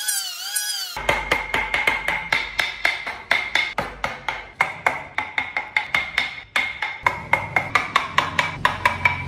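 Hammer striking a wood chisel as it cuts into a wooden car body, starting about a second in: a fast, even run of sharp taps, about five a second, each with a short ring.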